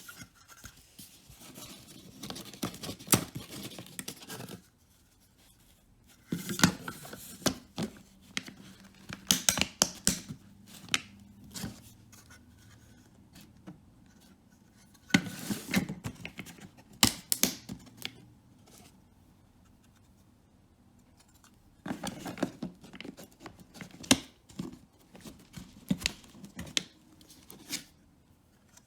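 Hands working small hard plastic parts: sharp clicks, snaps and scratchy scraping in four bursts of activity separated by quiet pauses.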